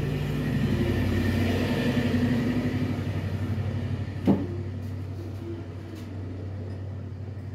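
A low steady hum and rumble that swells over the first couple of seconds and then slowly fades, with a single sharp knock about four seconds in.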